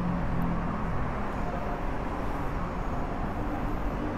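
Steady background noise of road traffic, with a faint low hum.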